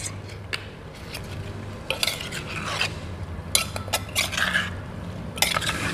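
A spoon stirring and tossing chunks of fruit salad in a clay mortar, scraping and knocking against the earthenware in several bursts.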